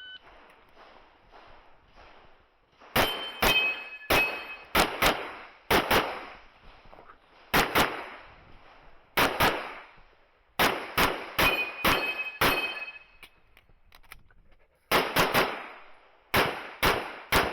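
Rapid handgun fire from an IPSC course of fire: about two dozen pistol shots, mostly in quick double taps, in several strings with short pauses between. A few times a steel target rings briefly after being hit.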